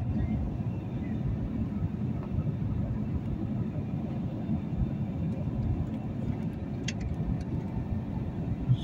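Steady low rumble of an airliner's cabin in flight, engine and airflow noise heard from a window seat.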